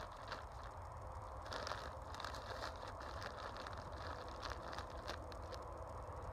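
Black plastic hive wrap rustling and crinkling as gloved hands press and tuck it down over the insulation, with many small scattered crackles.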